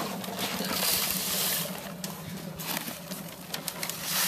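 Cat litter being scooped with a cup and poured into paper bags: a gritty trickling hiss with small clicks of granules and the rustle of the paper bags.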